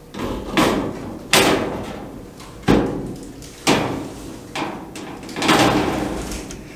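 Mesh front screen of a vent-free propane fireplace pushed and rattled by hand: a series of sharp clatters, about one a second, each trailing off quickly.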